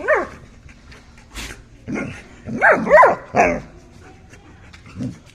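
Golden retriever giving short barks and whiny yips, its pitch sliding up and down, at the start, in a cluster about two to three and a half seconds in, and once more near the end.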